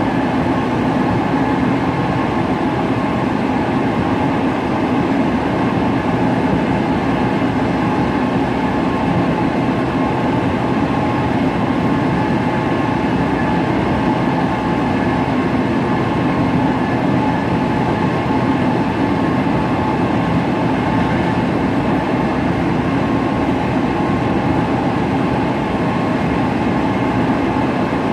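Tokyo Metro 07 series electric train running at steady speed, heard from inside the car: a steady rumble of wheels on rail with a steady whine from the drive under it.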